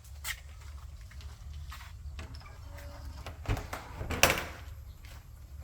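Restroom door being opened and shut: a few light knocks, then a louder clunk about four seconds in, over a steady low wind rumble on the microphone.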